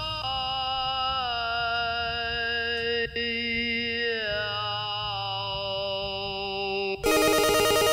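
Background music: a held chord that slides down in pitch twice, with a brief dropout about three seconds in. It cuts off abruptly near the end as busier music starts.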